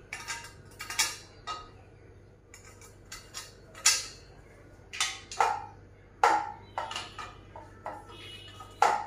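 Irregular metal clinks and knocks from the parts of a metal-tube inverter-battery trolley being handled and fitted together; a few of the louder knocks ring briefly.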